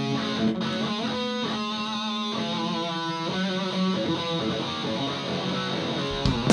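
Live rock band music without vocals: an electric guitar picks a ringing melodic passage, and drum hits come back in near the end.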